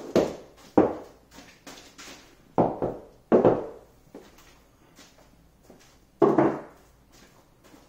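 Irregular wooden knocks and thuds from handling the butcher block countertop and kitchen cabinets, some in quick pairs. There is a pause of a couple of seconds before the last one.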